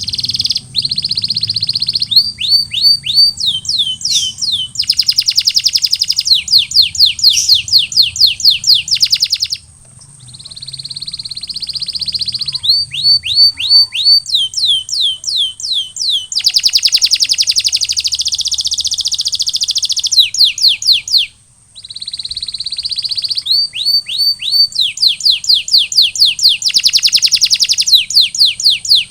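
Canary singing a long song of tours: runs of rapid, evenly repeated down-slurred notes alternating with sustained rolling trills, broken by two brief pauses about a third and two-thirds of the way through. A faint steady high-pitched tone runs underneath.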